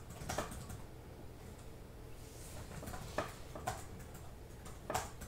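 A few faint, scattered clicks and taps over a low steady hum.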